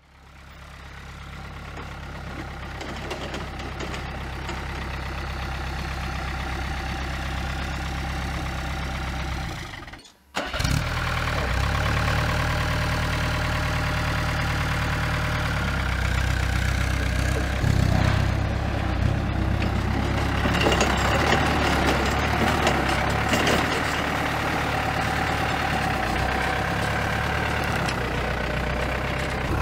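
Diesel engine of an Iveco truck converted into a forklift, running steadily at low speed as the truck moves about. The sound fades in at the start and cuts out briefly about ten seconds in before the engine carries on.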